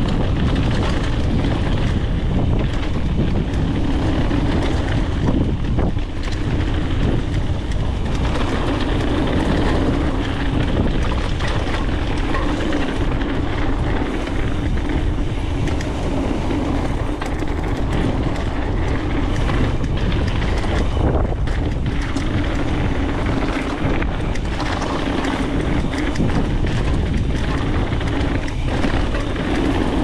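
A Specialized Stumpjumper full-suspension mountain bike ridden fast down a dirt trail, with wind buffeting an action camera's microphone. Tyre noise runs underneath, along with a constant clatter of small knocks and rattles from the bike over rough ground.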